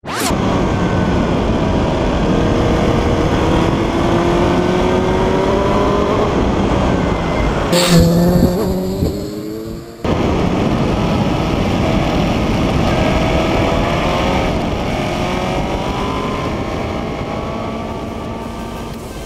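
Motorcycle engine accelerating hard, its pitch climbing again and again as it runs through the gears. A loud rushing burst comes about eight seconds in, and the sound breaks off abruptly at about ten seconds before the engine picks up climbing again.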